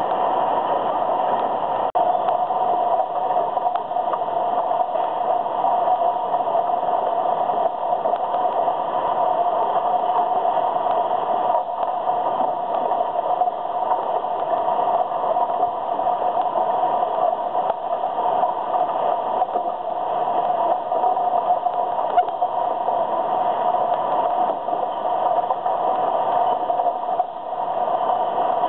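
Steady din of a recycling plant's sorting line running: conveyors and screens carrying mixed recyclables, with a constant mid-pitched hum.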